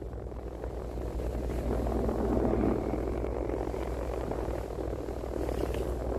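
A boat's engine running steadily with a low, even hum, with a steady rush of wind and water noise over it.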